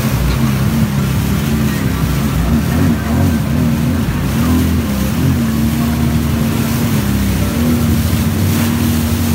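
Jet ski engines running over rushing water and wind noise. The nearest engine's pitch rises and falls repeatedly with the throttle, then holds steady from about halfway through.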